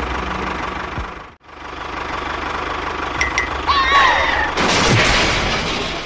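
An engine running with a steady low chug. It drops out briefly about a second and a half in. Near the end a squealing glide and then a loud burst of noise rise over it.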